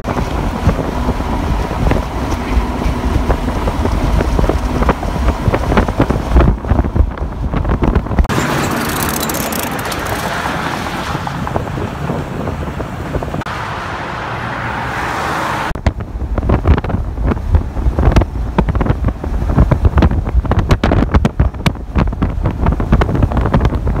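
Wind buffeting the microphone over the road noise of a moving vehicle. About eight seconds in, the gusty buffeting gives way to a steadier hiss for about seven seconds, then the buffeting returns.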